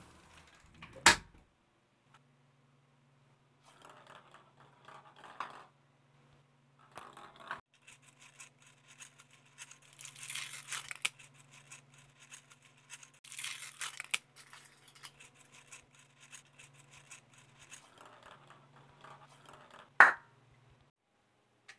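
Foil wrapper of a Kinder Surprise chocolate egg crinkling and tearing in several short bursts as it is peeled off, with a sharp knock about a second in and another near the end.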